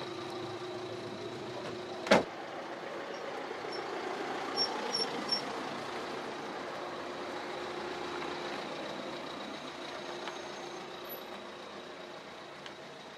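Steady street traffic noise with a car engine running, and one sharp knock about two seconds in that fits a car door being shut. A few short high chirps come a couple of seconds later.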